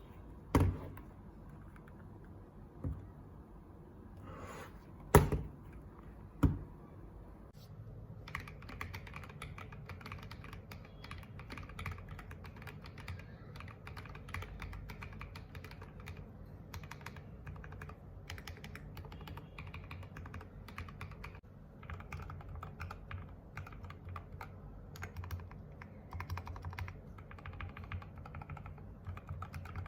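Mechanical keyboard fitted with MDA-profile keycaps: a few separate knocks, then steady rapid typing from about eight seconds in.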